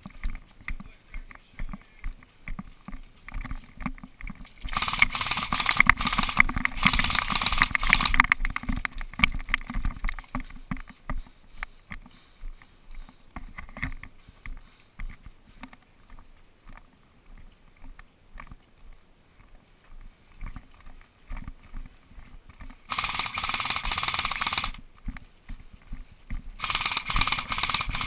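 Footsteps thumping on the wearer-mounted camera about twice a second, broken by bursts of full-auto airsoft electric rifle fire lasting a couple of seconds each: a rapid crackle with a faint gearbox whine that starts and stops abruptly, once early on and twice near the end.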